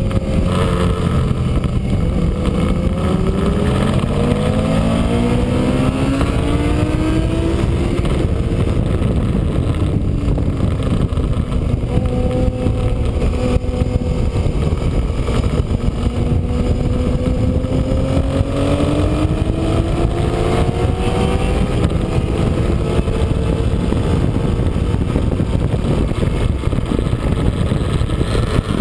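Sport motorcycle engine at speed on a racetrack, heard through heavy wind rush on an onboard camera's microphone. The engine note drops at first, climbs for several seconds, holds, then rises slowly again before falling near the end.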